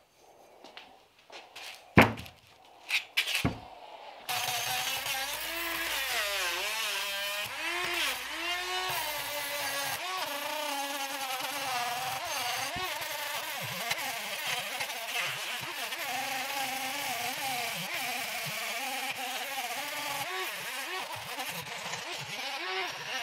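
A few knocks, then about four seconds in a small handheld rotary tool with a wire brush starts and runs on, its high whine wavering in pitch as the brush is pressed against the rusty brake caliper to strip rust and dirt before painting.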